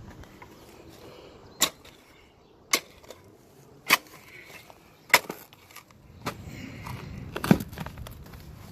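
A hand tool striking buried concrete while a fence-post hole is dug out: six sharp strikes, evenly spaced a little over a second apart.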